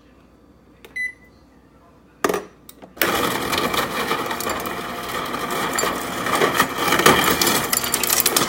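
A loud, dense clattering and clinking rattle that lasts about six seconds and stops suddenly, after a couple of short knocks.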